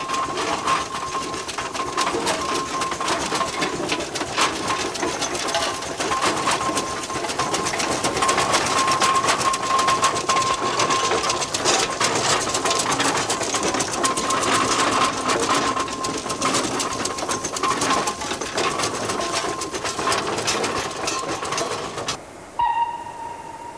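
Steam train on a heritage line running, a continuous rapid mechanical clatter with a steady high ringing tone over it. The sound falls away sharply near the end.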